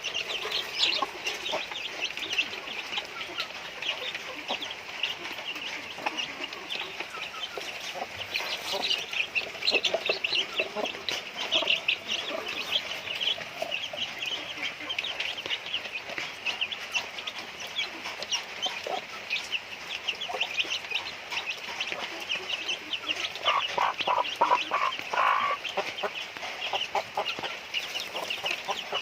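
A flock of chickens clucking and peeping continuously while they feed, with a run of quick, lower clucks about 24 seconds in.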